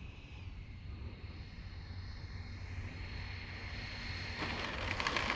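Twin 80 mm electric ducted fans of an RC MiG-29 jet on landing approach: a thin fan whine that dips slightly in pitch about half a second in, growing louder as the jet nears. A loud rushing noise swells in near the end as it comes close.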